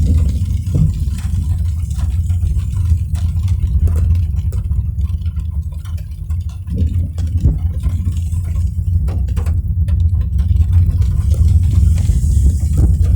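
Car driving: a steady low rumble from the engine and road, with scattered faint short ticks throughout.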